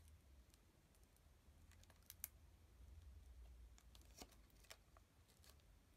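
Near silence with a handful of faint light clicks as small rhinestones are picked up and set onto the cardstock.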